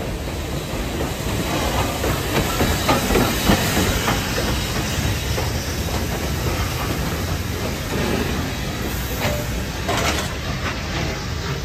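Steam locomotive No. 224 rolling slowly past at close range, with a steady hiss of steam and its wheels clicking and clanking over the rail joints.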